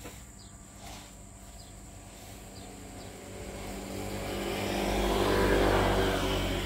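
A motor vehicle passing by: engine noise grows louder over a few seconds, peaks about five to six seconds in, then begins to fade.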